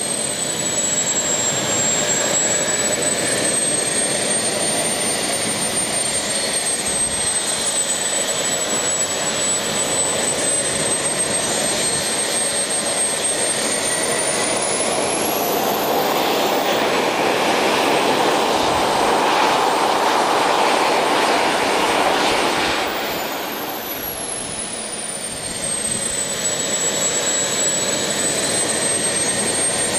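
Small RC model jet turbine running on a test stand: a rushing roar with a thin high whine over it. About halfway through, the whine climbs in pitch as the turbine speeds up and holds for several seconds. It then glides back down to its earlier pitch, with a brief dip in loudness.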